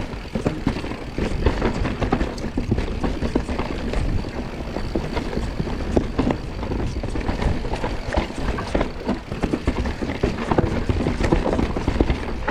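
Mountain bike ridden fast down a rough, dusty singletrack: tyres rumbling and crunching over dirt and rocks, with frequent knocks and rattles from the bike over the bumps.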